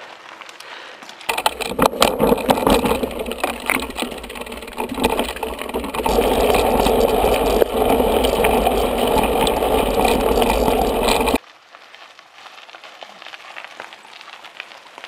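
Rumble, wind and rattle of a camera riding along on a mountain bike over a gravel forest track, with tyres crunching on loose gravel and sharp clicks from bumps. It starts suddenly about a second in, grows louder and steadier about halfway, and cuts off suddenly near the end, leaving only faint outdoor ambience.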